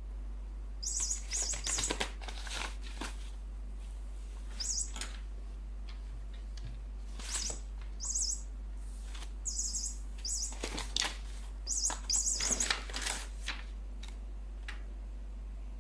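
Bird-shaped cat toy chirping in short high bursts, about a dozen times in several groups, mixed with knocks and rustles as it is batted and chased across the floor. A steady low hum runs underneath.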